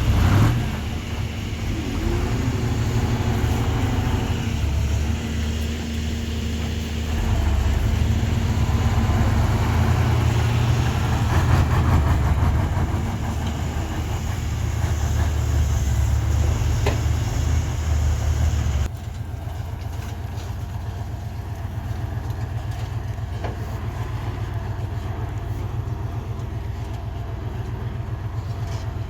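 Heavy diesel engine of construction machinery running with a deep, steady rumble that swells and eases under load. About two thirds of the way through, the sound cuts abruptly to a quieter, even engine drone.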